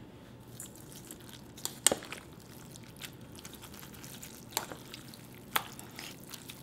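Chopsticks mixing cold noodles and spicy sauce in a stainless steel bowl: quiet, wet squishing, with a few sharp clicks of the chopsticks against the bowl.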